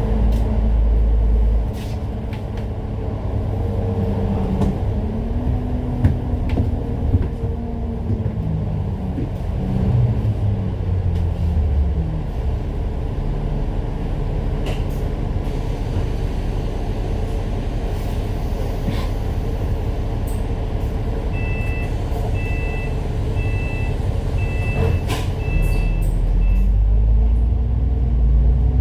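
Diesel engine of a Citybus double-decker bus heard from on board, its pitch falling as the bus slows over the first dozen seconds, then running steadily with a few clicks and knocks. Near the end a warning beeper sounds about six short beeps, and the engine pitch then rises as the bus pulls away.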